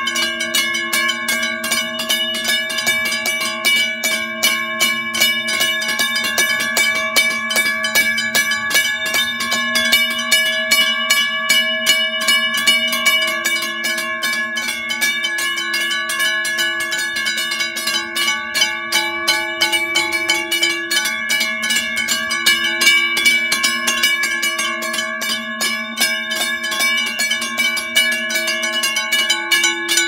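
Three electric railway crossing bells (BZ, WRRS and WCH) ringing at once, their hammers striking the gongs in rapid, overlapping strokes. The gongs' tones hang on steadily under the continuous clanging.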